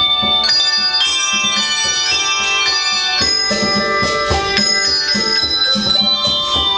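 Handbell choir playing a piece: many bells struck in chords and left ringing, with new notes entering every fraction of a second over a steady low rhythmic pulse.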